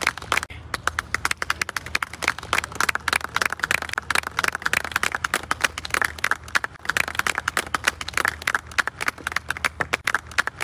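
A small crowd clapping steadily, many separate hand claps overlapping.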